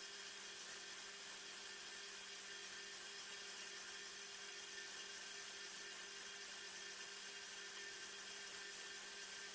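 Belt sander running faintly and steadily: a constant motor hum under an even hiss.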